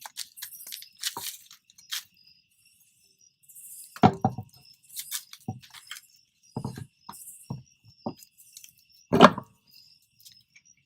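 A car wheel being handled and fitted onto the hub's wheel studs: scattered metallic clinks and knocks, the loudest about nine seconds in. Crickets chirp steadily throughout.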